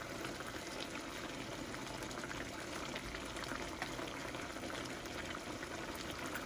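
Squash, long beans and eggplant in a shrimp-paste sauce simmering in a pan: a steady bubbling with small scattered pops.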